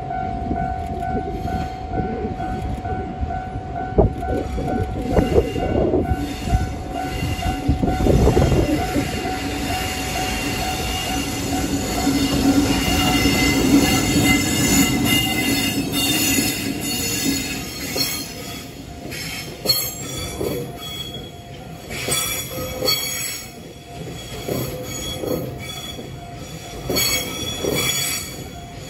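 An EF65 electric locomotive hauling a train of tank wagons pulls away slowly and passes close by. Its hum is loudest as it goes past about halfway through. Then the tank wagons roll by, their wheels clicking over rail joints and squealing.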